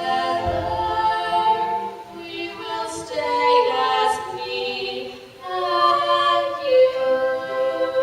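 A chorus of voices singing together on stage, holding long notes.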